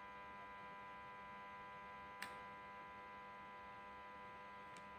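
Near silence with a faint, steady electrical hum, broken by a single short click about two seconds in.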